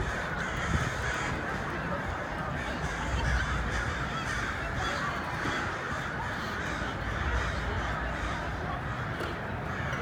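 Large flock of dark birds calling, many harsh calls overlapping without a break.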